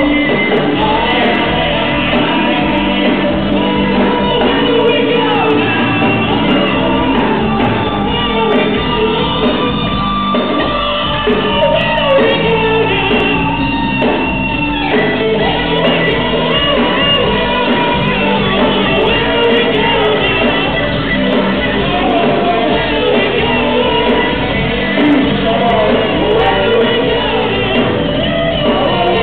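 Live rock band playing with a singer, amid shouts and yells.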